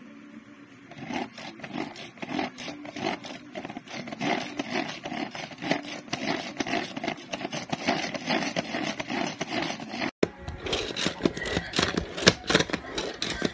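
Irregular rubbing and scraping as a plastic and glass electric food chopper is handled. It starts about a second in and breaks off abruptly just after ten seconds, then goes on brighter.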